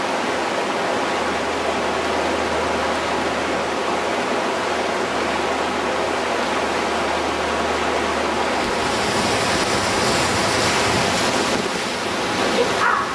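River rapids rushing steadily. About two-thirds through, the rush turns brighter and hissier as the camera moves into the whitewater itself.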